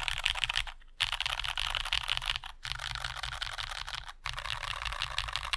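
Fast typing on a SQUARE.X 60% custom mechanical keyboard with an aluminium plate and lubed, filmed Cherry MX Brown Hyperglide tactile switches, in four quick runs of keystrokes with short pauses between them.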